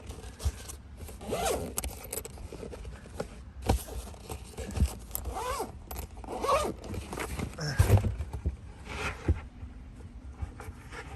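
A zipper being pulled and small items being handled, with irregular scraping rasps and sharp clicks.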